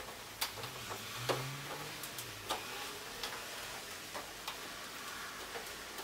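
Scattered sharp clicks and light handling noises as a tumble dryer door seal is pressed into place around the door opening of the front panel, a handful of irregular clicks spread across a few seconds.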